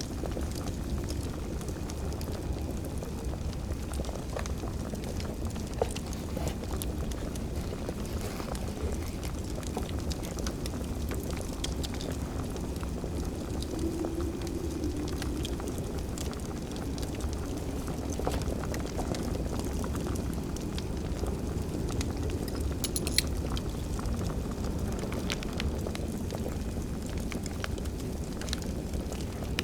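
Wood fire crackling over a steady low rumble, with scattered small clicks and two sharper pops, one about six seconds in and one about twenty-three seconds in.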